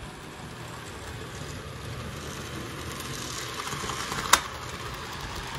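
HO scale Union Pacific Big Boy model steam locomotive running through track switches: a steady low motor hum and wheel-on-rail noise that grows slowly louder, with one sharp click about four seconds in.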